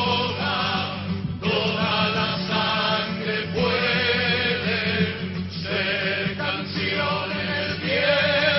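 A choir singing a slow chant in phrases of about two seconds, the voices wavering in pitch, over a steady low tone.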